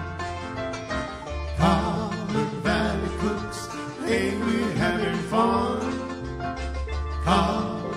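Country-style theme song: a singing voice over plucked strings and a steady bass line.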